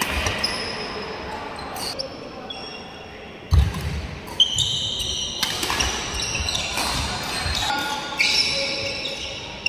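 Badminton doubles rally in a large hall: sharp racket hits on the shuttlecock and shoes squeaking on the court floor, with a heavy thud about three and a half seconds in.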